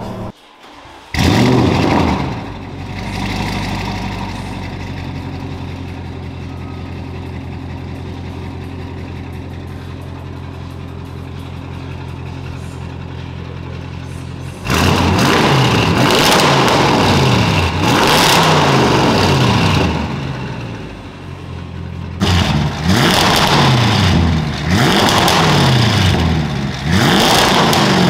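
Stage 2 Audi RS6 Avant's twin-turbo V8 on a straight-piped exhaust. It starts up with a loud flare about a second in, then settles to a steady idle. From about halfway it is revved hard again and again, with a short lull before a further string of revs near the end.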